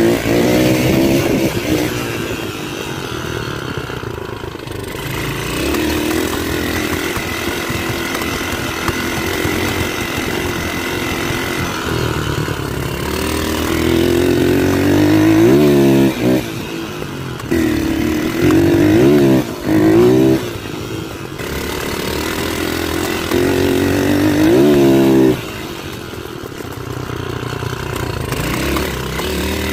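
Dirt bike engine running under way, revving up repeatedly with its pitch climbing and then dropping back as the throttle is eased off.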